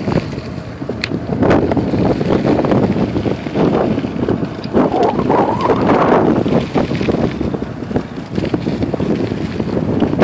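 Wind buffeting the microphone over the rough rumble of wheels rolling fast on a dirt road, while being towed behind an RV.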